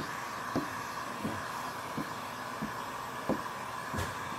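Handheld heat gun blowing steadily as it heat-shrinks window tint film onto a car's rear glass, with soft low thumps about every two-thirds of a second.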